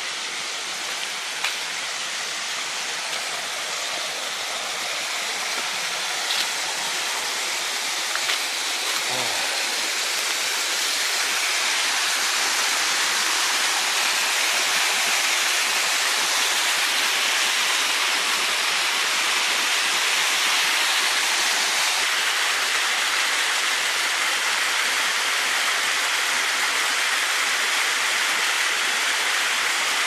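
Waterfall water rushing and splashing down a rock face, a steady hiss that grows louder over the first ten seconds or so and then holds.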